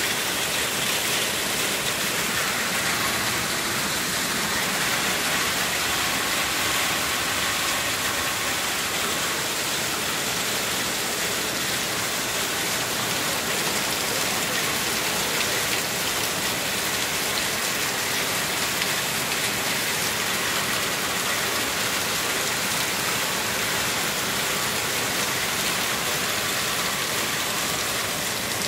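Hail falling heavily: a steady, dense hiss of countless small hailstone impacts that does not let up.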